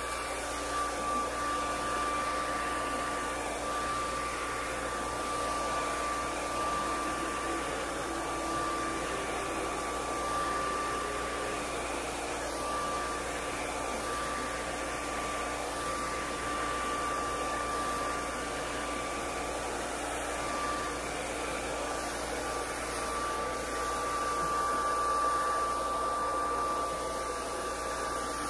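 Handheld hair dryer blowing steadily: a continuous rush of air with a constant whine.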